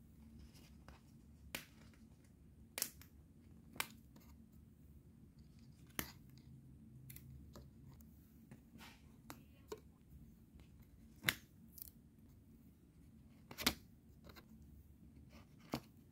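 Glossy sticker sheet crackling and clicking as it is handled and stickers are peeled off its backing: scattered sharp crackles at irregular intervals, two of them louder about two-thirds of the way through.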